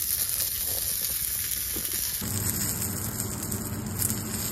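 Dove breasts sizzling in oil in a small cast iron skillet on a gas burner: a steady frying hiss. About two seconds in the sound changes abruptly and a low steady hum comes in under the sizzle.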